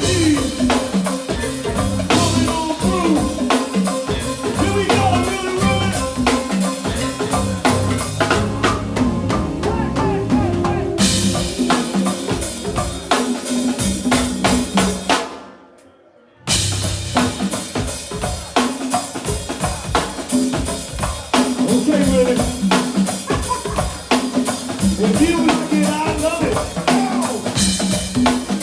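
Live band music driven by a drum kit with bass drum, snare and rimshots keeping a steady beat. About halfway through the band cuts out for roughly a second, then the beat comes straight back in.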